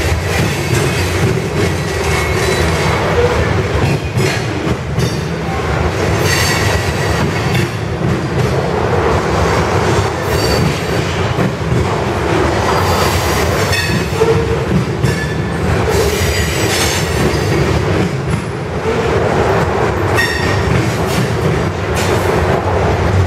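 Freight train of covered hopper cars rolling past close by: a steady rumble of steel wheels on rail, with clicks as the wheels cross rail joints and brief, high wheel squeals now and then.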